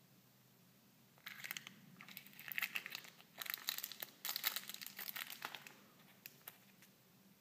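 Small clear plastic bag of candies crinkling in the fingers, in bursts starting about a second in and lasting some four and a half seconds, followed by a couple of light clicks near the end.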